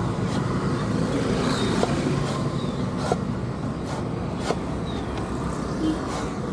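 Street traffic: a steady hum of passing vehicles, with sharp knocks at irregular intervals of about a second.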